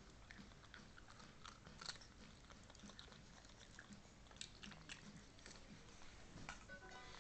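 Pug biting and chewing a raw carrot held out by hand: faint, irregular crunching and clicks as its teeth work the carrot.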